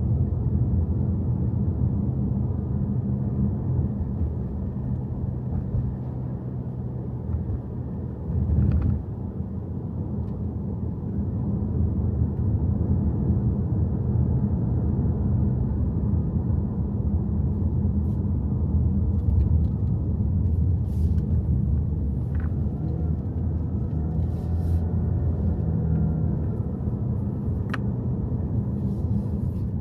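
Subaru Forester driving uphill: a steady low rumble of engine and tyre noise, with a single louder thump about nine seconds in and a few faint clicks later on.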